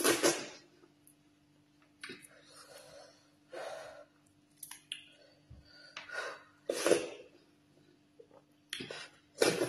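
Close-miked eating sounds of fufu and ogbono soup eaten by hand: a string of short mouth noises and sharp breaths, a second or more apart, the loudest right at the start as a mouthful goes in. A faint steady hum runs underneath.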